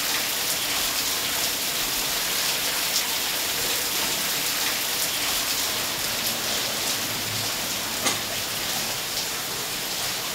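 Large water wheel turning at speed, water splashing and pouring steadily off it, with a light knock about eight seconds in.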